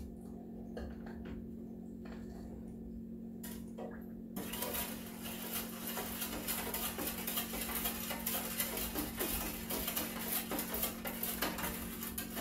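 A long spoon stirring sugar into Kool-Aid in a pitcher, a fast run of scraping and clinking against the pitcher from about four seconds in, after a few light clicks.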